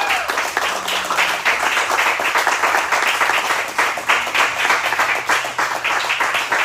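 Crowd applauding, many hands clapping at once in a steady, dense patter.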